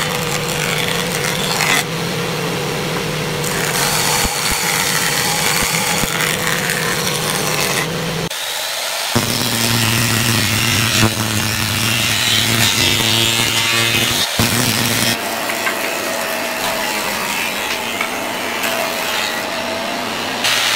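Electric woodworking planers running and cutting pine boards: first a jointer's spinning cutterhead shaving a board pushed across it, then a thickness planer feeding a board through. A steady motor hum under the noisy hiss of the blades taking off wood, with the pitch of the hum changing about eight seconds in.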